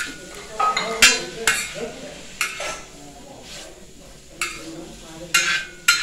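Long metal spoon scraping and clinking against a wide, shallow steel pan as food is stirred over a wood fire, about seven sharp strokes spread through. Under them the food sizzles lightly in the pan.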